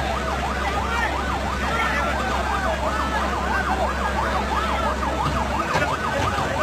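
Emergency vehicle siren sounding continuously in a fast up-and-down yelp, about three sweeps a second.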